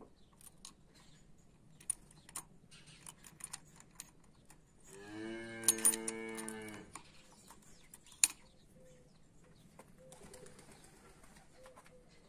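Light metallic clicks and jingles of a key being handled and turned in a motorcycle's ignition lock. A cow moos once in the middle, one long call of about two seconds.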